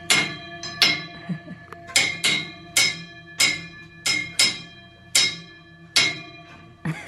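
A ringing metal object struck about ten times at an uneven pace, each hit leaving a bell-like ring.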